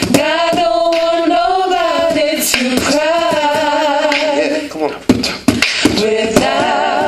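A song with a singing voice that wavers with vibrato over sharp percussive beats. The sound dips briefly about five seconds in.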